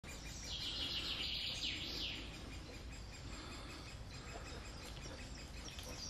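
Woodland birdsong: a songbird sings a quick run of high notes for about the first two seconds, followed by softer scattered chirps over faint low background noise.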